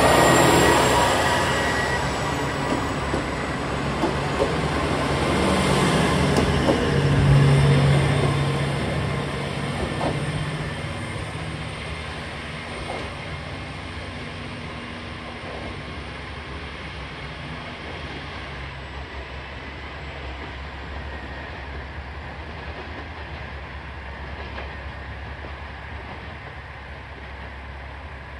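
KiHa 47 diesel railcar pulling away from the station. Its engine runs loud at first and swells briefly under power, with a few clicks of the wheels over rail joints. The sound then fades steadily as the train draws off into the distance.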